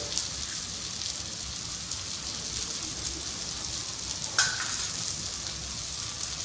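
Onion-tomato masala frying in oil in a pan, a steady sizzle with fine crackling, just after spice powders are added. A single sharp clink with a short ring about four and a half seconds in.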